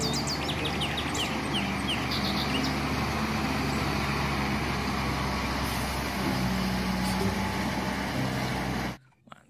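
Diesel engine of a concrete mixer truck running as the truck moves, a steady drone with a low hum; the sound cuts off abruptly near the end.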